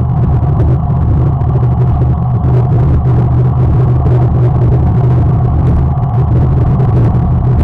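Loud, steady low rumble of wind and road noise on a camera moving with a bicycle race, unbroken throughout.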